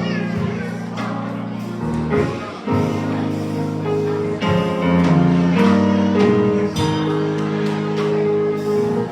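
Instrumental music with sustained chords over steady bass notes, the chords changing every second or so.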